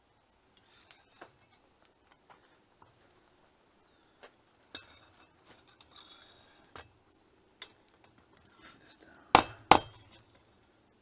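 A few light metallic clinks and taps, then two sharp hammer blows on steel against an anvil near the end, about half a second apart: the forged draw knife blade being hammered straight.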